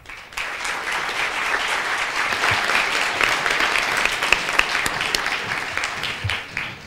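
Audience applauding: a dense clatter of many hands clapping that starts within the first half second and dies away near the end.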